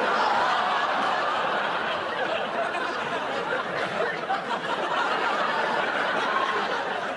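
Studio audience laughing in one long wave that starts abruptly and eases off a little toward the end.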